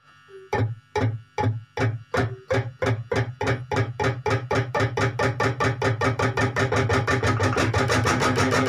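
Electric guitar imitating a Dongfeng diesel engine. Repeated low plucked pulses begin about half a second in at roughly two a second and speed up steadily to a rapid, even putter of about six a second, like the engine coming up to speed.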